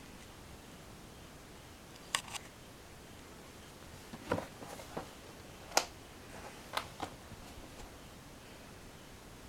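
Scattered single key presses on an iBUFFALO Bluetooth keyboard: about eight sharp clicks, one or two at a time with pauses between.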